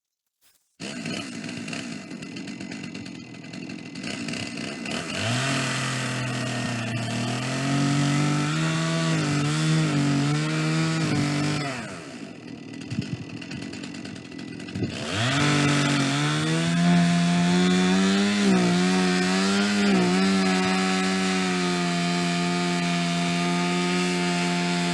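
Two-stroke chainsaw in a chainsaw-mill attachment ripping white pine. The engine comes up to speed about five seconds in with its pitch wavering under load, drops back for a few seconds around the middle, then revs up again and holds high and steady.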